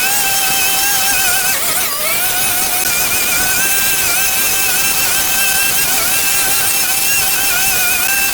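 Small engine-powered garden tool running steadily at high speed, a high whine over a hiss, with a brief dip about two seconds in.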